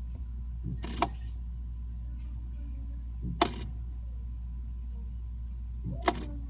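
Frigidaire refrigerator giving a sharp click three times, about two and a half seconds apart, each with a softer sound just before it, over a steady low hum. It is the intermittent noise whose cause the owner cannot find.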